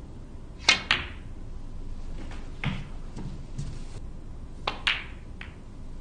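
Snooker balls clicking: a sharp double click about a second in as the cue strikes the cue ball and it hits an object ball, a softer knock near three seconds, then another quick pair of clicks near five seconds as the cue ball is played into the pack of reds.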